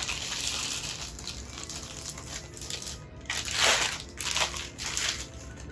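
Clear plastic packing bag crinkling and rustling as it is handled and pulled off a figurine, in a series of irregular rustles, the loudest about three and a half seconds in.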